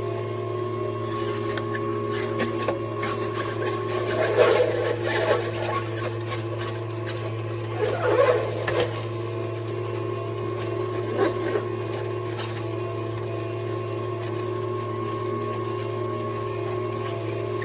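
Slow masticating juicer running with a steady motor hum. Three bouts of crunching and grinding are heard as produce is crushed by the auger.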